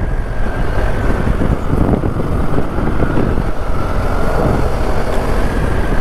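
Steady running noise of a motorcycle heard from the rider's seat: a constant rush of wind and road noise with nothing standing out.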